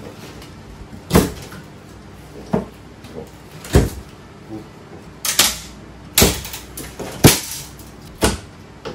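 A long black metal bar being handled against a wooden lattice frame: a series of sharp knocks and clacks, about one a second, seven in all, the loudest about four and seven seconds in.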